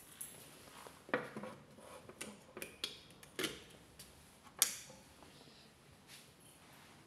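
A series of light, irregular clicks and knocks, about half a dozen, the sharpest a little over four and a half seconds in.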